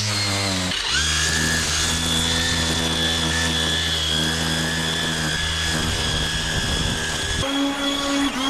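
String trimmer running at speed while edging grass along a concrete edge, a steady high motor whine; the motor note changes abruptly near the end.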